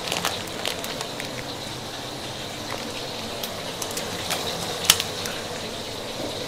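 Mackerel tuna frying in hot oil in a pan: a steady sizzle with scattered crackles and spits, and one sharp pop about five seconds in.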